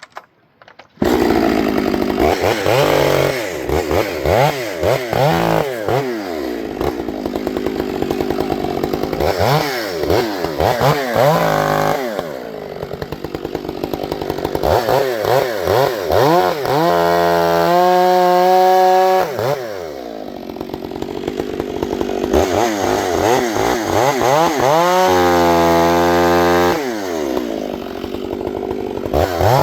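Gasoline chainsaw running, throttled up and down repeatedly while cutting into a spruce butt round, starting suddenly about a second in. Twice, past the middle and near the end, it is held at a steady high pitch for about two seconds.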